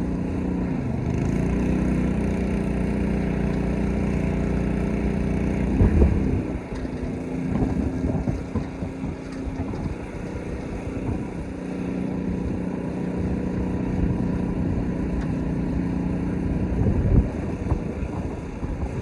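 Small petrol engine of a pressure washer running steadily, its note rising slightly between one and two seconds in. There is a loud bump about six seconds in and another near the end.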